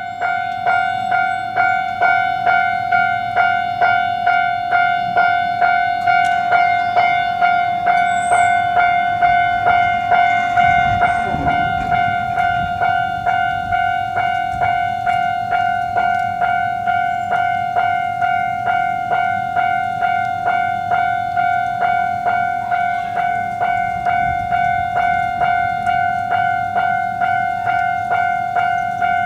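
Japanese railroad crossing warning bell ringing in a steady, even rhythm of about two strokes a second, each stroke a bright ringing tone. A low rumble, typical of a train, swells briefly about ten to twelve seconds in.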